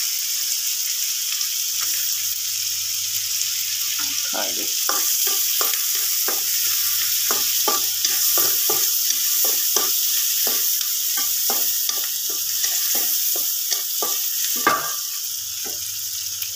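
Butter, onion and garlic sizzling in a wok with a steady frying hiss, while a wooden spatula stirs and scrapes the pan in quick repeated strokes from about four seconds in.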